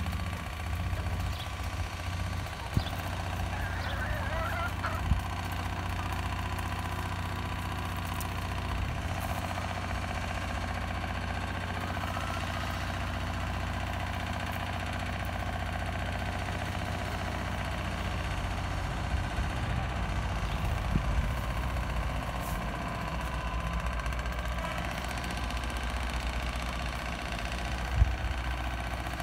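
Chickens in a yard: a short wavering call from a chicken about four seconds in, over a steady low machine hum, with a few sharp knocks, the loudest near the end.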